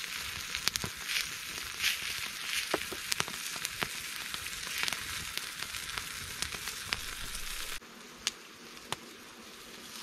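Meat sizzling over an open campfire, a steady hiss with frequent sharp crackles from the burning wood. About eight seconds in the sizzling cuts off, leaving a quieter fire with a few pops.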